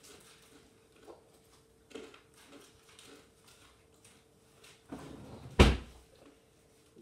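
Faint rustling and small knocks, then one loud, sharp thump about five and a half seconds in, the kind of bang made by a cupboard door, drawer or object shut or set down hard. A faint steady hum sits underneath.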